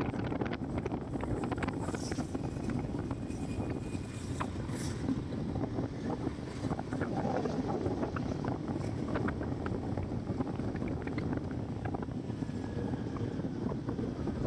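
Wind buffeting the microphone over a vehicle engine running steadily, as heard while riding along a road.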